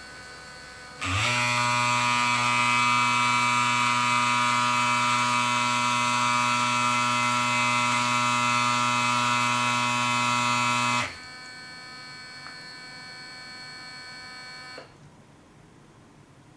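Braun Series 5 electric shaver buzzing steadily in its cleaning station during an automatic cleaning cycle, starting about a second in and running for about ten seconds. It then stops, and a quieter hum carries on for a few seconds before cutting off.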